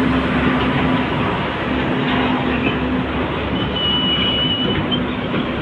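Fuel tanker semi-trailer truck passing close by at low speed: steady engine drone and rolling tyre noise on the wet road. A thin high squeal sounds for about a second, starting about three and a half seconds in.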